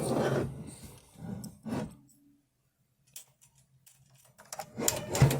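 Brand New Model F buckling-spring keyboard being handled and turned over, with clatter and sharp clicks from its keys and case. It goes quiet about two seconds in, then a quick run of clicks and knocks starts near the end.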